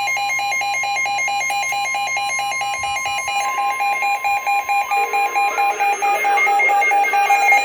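Several weather alert radios sounding their emergency alarms at once for severe thunderstorm warnings: steady alert tones under a fast beeping of about six beeps a second. The beeping stops about three and a half seconds in and one steady tone cuts off about five seconds in, while other choppy, overlapping alarm tones carry on.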